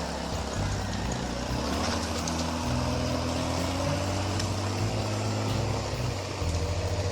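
Logging skidder's engine running under load, its pitch rising and falling slowly.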